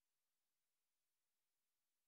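Silence: the film has no sound track.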